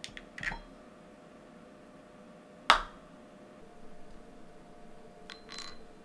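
A single sharp clack about three seconds in: the cast-iron weight plates dropping onto the desk as the wire holding them snaps. Fainter clicks and taps of handling come near the start and near the end.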